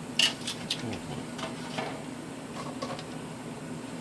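A few light clicks and taps from snack packaging and candy being handled, the sharpest about a quarter second in, over a steady low hum.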